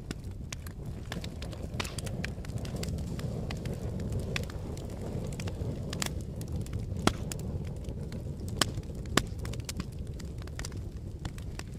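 Fire crackling: a steady low rumble of flames with frequent sharp pops, a few louder ones about two-thirds of the way in.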